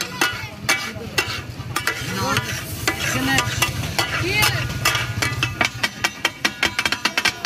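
Steel spatulas clanking rapidly against a large flat iron tawa as masala is chopped and stirred in sizzling oil. The clatter thins out for a few seconds in the middle, where a low hum rises, then comes back fast near the end.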